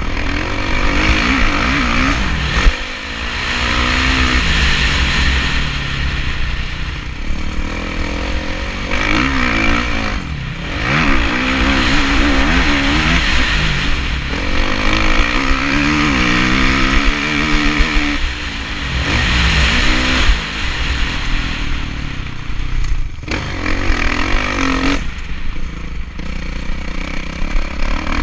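Kawasaki KX450F motocross bike's four-stroke single-cylinder engine, heard from on the bike, revving up and down through the gears, with the throttle shut off briefly several times for corners. Wind buffets the microphone underneath.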